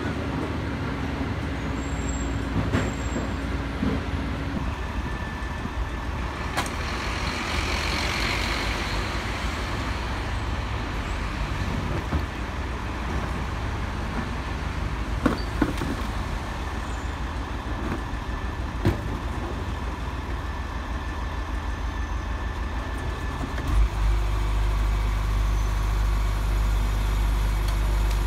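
Garbage truck engine running steadily, with a few sharp knocks and clanks; about 24 seconds in the engine note steps up to a louder, steady drone.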